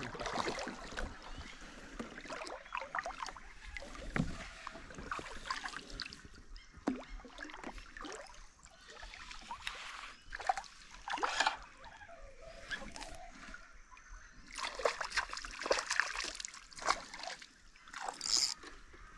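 Water splashing and sloshing at the side of a kayak in short, irregular splashes as a hooked Australian bass jumps and thrashes at the surface. The splashes come thicker again near the end.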